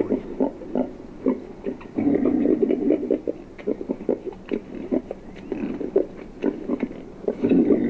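Hog call of boars courting a sow in heat: bouts of grunting and breeding growls with many sharp lip-smacking clicks. The grunting swells about two seconds in and again near the end.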